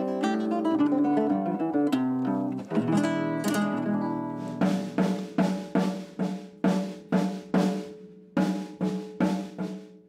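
Nylon-string acoustic guitar played with plucked, ringing notes. About four and a half seconds in, a drum kit takes over, struck in an even beat of about two to three hits a second, each hit ringing out.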